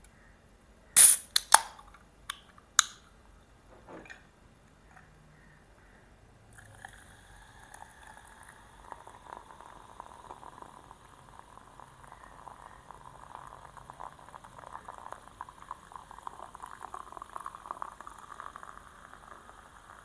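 Coke can's pull tab cracked open with a sharp pop and hiss about a second in, followed by a few small clicks. From about six seconds in, cola poured into a glass, fizzing steadily and building in loudness toward the end.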